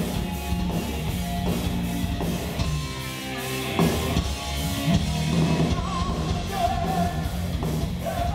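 Heavy metal band playing live through a club PA, heard from the crowd: electric guitars and drum kit, with a voice singing a held, wavering line in the latter half.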